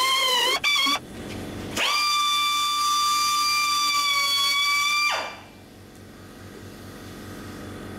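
Corded angle grinder trimming the edge of a cured fiberglass trunk lid. Its whine wavers and dips under load for about the first second, then stops. Nearly two seconds in it spins back up to a steady high whine, and about five seconds in it is switched off and winds down with a falling pitch.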